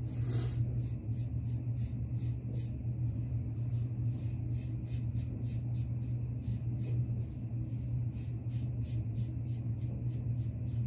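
Double-edge safety razor scraping stubble through shaving lather in short, quick strokes, about three to four a second, over a steady low hum.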